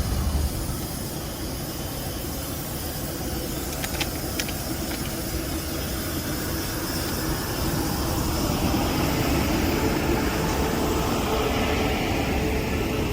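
A train rumbling along on the rails, growing louder from about two-thirds of the way through, with a couple of sharp clicks about four seconds in.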